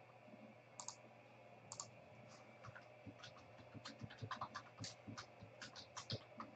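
Faint clicking of computer keys: two single clicks about a second apart, then quick, irregular keystrokes from about halfway in as words are typed.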